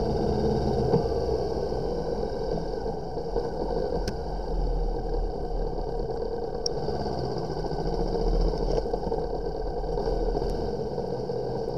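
Honda CB500X's parallel-twin engine running steadily as the motorcycle rides slowly along a paved lane, mixed with steady wind and road noise.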